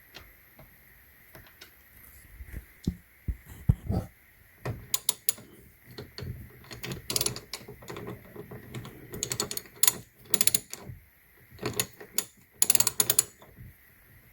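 Ratchet wrench clicking in quick runs as a triple-square spline bit socket is worked on a bolt. The clicking starts a couple of seconds in and comes in bursts, stopping shortly before the end.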